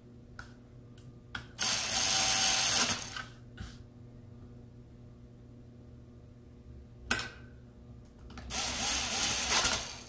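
Cordless electric screwdriver running twice, about a second and a half each time, driving small screws into a laptop SSD's metal drive caddy. A few light clicks of small metal parts come between the runs.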